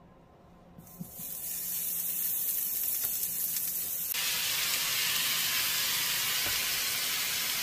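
Slices of raw pork belly sizzling in a hot frying pan as they are laid in. The hiss starts about a second in and turns fuller a little past halfway, then holds steady.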